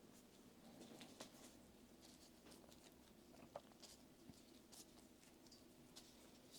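Near silence with faint scattered taps and soft rustling from pizza toppings being laid out by hand.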